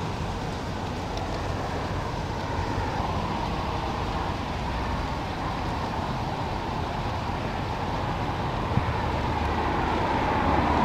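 Steady freeway traffic noise: a low rumble and tyre roar, growing louder near the end.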